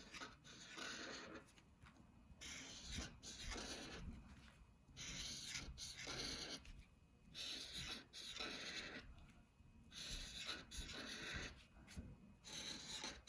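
Thick black marker drawn across paper in a series of short strokes, outlining a drawing.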